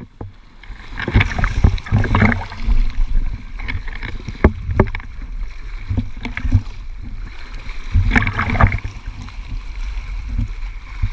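Small sea waves washing and splashing over rocks at the waterline, heard right at the water, with a low rumble, irregular sloshes and sharp knocks and louder surges coming and going.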